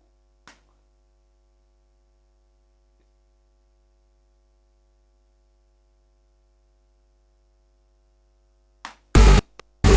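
Near silence with a faint steady mains hum for most of the time, then near the end a few loud, short bursts of electronic synth sound cutting in and out, as a sound is auditioned in the music software.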